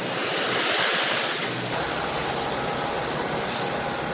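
Steady rushing of wind and water aboard a sailboat under way, with a faint steady tone coming in about two seconds in.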